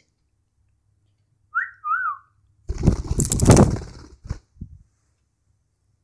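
A pet budgerigar whistles two short notes, the first rising, the second wavering. About a second later comes a loud rustling flurry lasting over a second, then two soft clicks.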